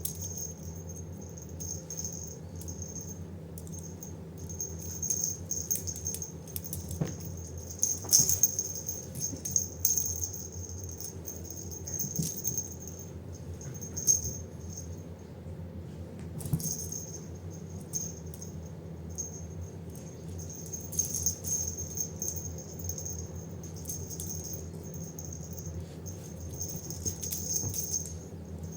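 A kitten's toy jingling and rattling in bursts as it is played with, with a small bell ringing on and off and sharp clatters now and then. A steady low hum runs underneath.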